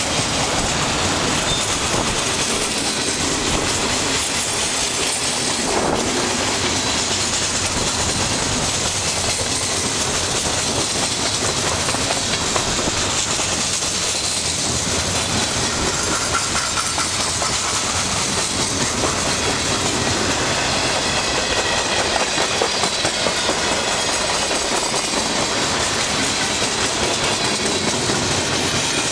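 Freight train cars (autoracks and boxcars) rolling past close by: a steady, loud run of steel wheels on rail, with wheels clicking over the track throughout.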